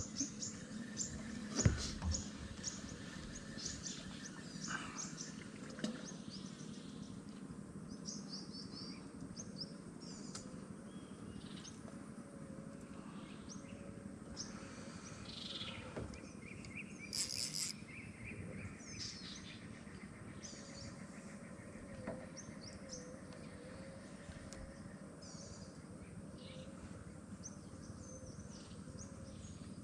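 Birds chirping in short, high, repeated calls over a faint steady background hiss.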